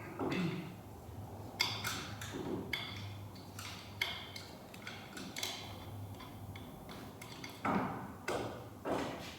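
Irregular sharp metallic clicks and knocks, about a dozen, from handling the front hub assembly of a 2003 Chevy Tahoe whose wheel bearing is bad, with the loudest knocks near the end.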